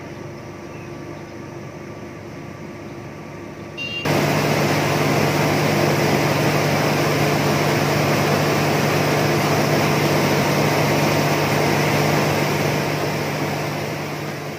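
Steady hum of a running rice mill's machinery, muffled through the corrugated-metal shed wall. About four seconds in it jumps abruptly to the full, much louder din of the milling machines inside, an even roar over a steady low hum, which fades near the end.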